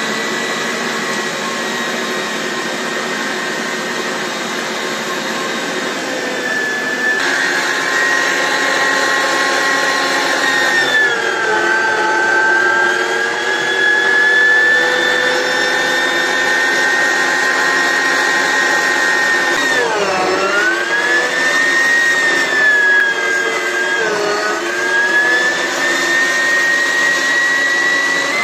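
Electric meat grinder running as sprouted wheat is forced through it, a steady motor whine. Its pitch sags several times under load, most sharply about two-thirds of the way through, as the wheat's roots strain and clog the auger.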